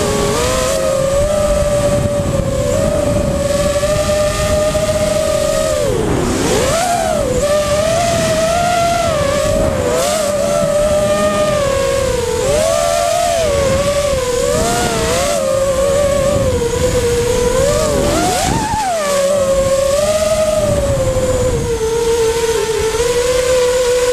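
Brushless electric motors and propellers of a 250-size FPV racing quadcopter, heard from its onboard camera: a steady high whine that keeps rising and falling with the throttle. The pitch drops sharply and swoops back up twice, about six seconds in and again near nineteen seconds, as the throttle is chopped and reapplied.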